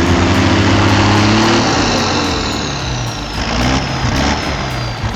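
Deuce-and-a-half military truck's engine working under load, its pitch rising and falling twice as it is revved.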